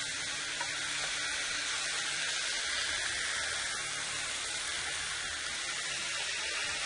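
Thin chicken fillets sizzling steadily on a hot electric grill plate.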